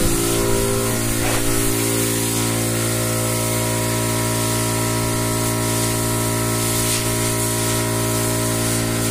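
A steady hum made of several fixed tones, with a constant hiss over it, unchanging throughout.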